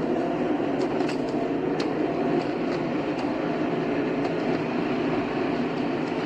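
Car driving at highway speed: steady engine and tyre road noise with a continuous low rumble.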